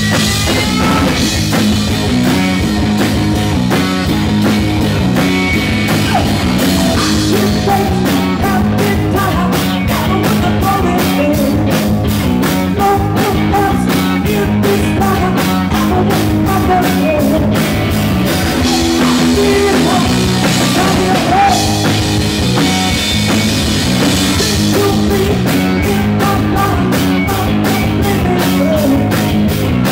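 Live rock band playing loud and continuous: electric guitar over a drum kit with a steady, driving beat and cymbals.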